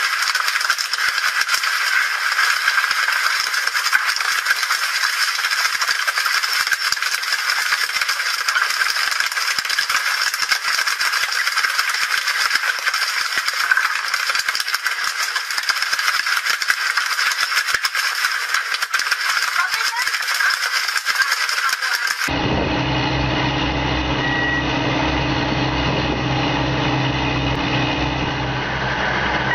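A dense, high-pitched rattling hiss with no low end. About 22 seconds in it cuts abruptly to a boat's engine running steadily with a low hum.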